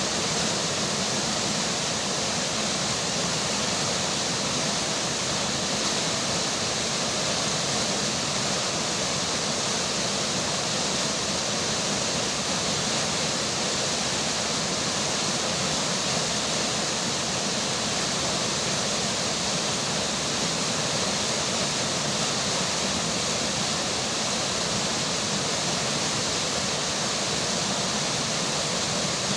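River water flowing steadily in an even, unbroken rush, with rain falling.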